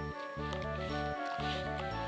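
Background instrumental music with a bass line of short, evenly paced notes.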